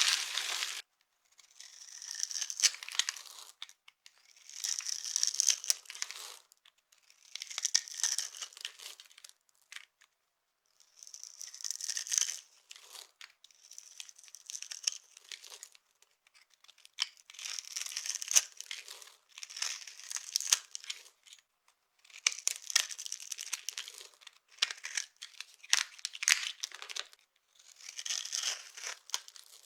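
Dry, crumbly blocks being crushed, giving about ten short bursts of crunching and crumbling, each a second or two long, with brief quiet gaps between them.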